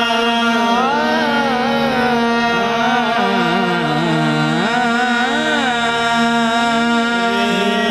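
Qawwali music: a harmonium holds steady drone notes while a voice sings a long wordless run that glides and wavers up and down.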